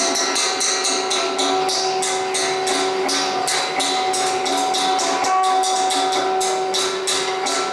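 Improvised live noise music: a steady drone of several held tones under a rapid, irregular run of sharp, bright strikes, several a second.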